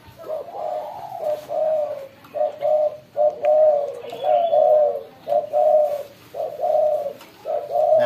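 Spotted dove (derkuku) cooing: a long run of short repeated coos, about two a second.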